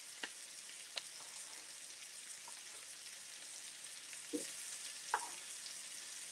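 Ribeye steak searing in butter in a hot pan, a faint steady sizzle, with a few light knife taps on a wooden cutting board as peppers are cut.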